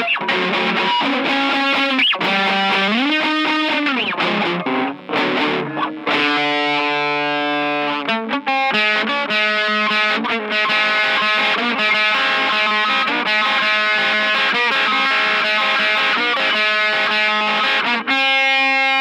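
Distorted electric guitar with effects, playing bending melody notes and then a fast run of notes, settling on a held chord near the end.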